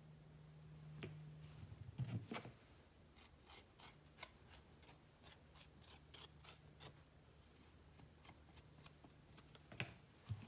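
Faint quick ticks and taps, about two or three a second, with a louder knock about two seconds in and another near the end, from hands and a tool working clay coils; a low steady hum underneath.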